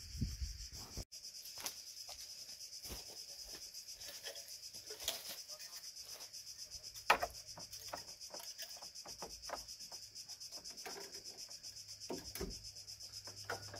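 A steady high-pitched chorus of insects, with scattered clicks, taps and rustles of handling close by; the sharpest click comes about seven seconds in.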